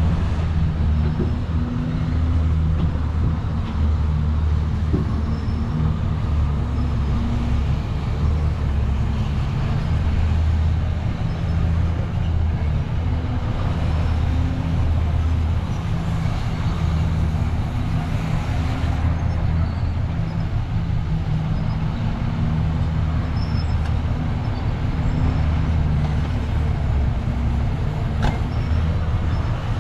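Heavy diesel engine of earthmoving machinery running steadily, its engine note rising and falling repeatedly as it works under load.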